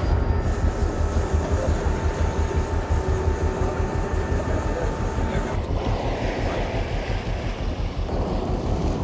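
Steady low rumble of a sportfishing boat's engines under way, mixed with wind on the microphone and sea wash. A faint thin whine runs through the first half and stops about five and a half seconds in.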